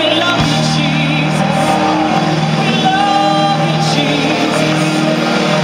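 Live worship music: a sustained, held chord on keyboard under voices singing with vibrato.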